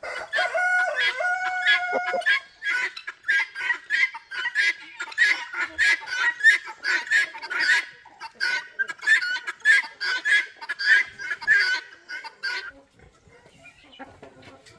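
A rooster crows once, a call of about two seconds, then chickens cluck and squawk in quick repeated calls that die down about two seconds before the end.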